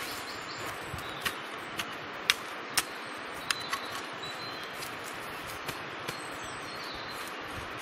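Small hand shovel digging into stony soil: a handful of sharp chops and scrapes as the blade strikes the ground, most in the first half, over a steady hiss with faint birdsong.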